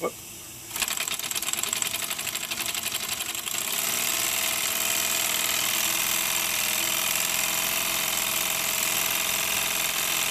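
1926 Bowman 234 live steam O-gauge locomotive's oscillating-cylinder steam engine purring: a fast, even chuff, its new cylinders still being run in. After a short gap just at the start it picks up again, and it runs louder and smoother from about four seconds in.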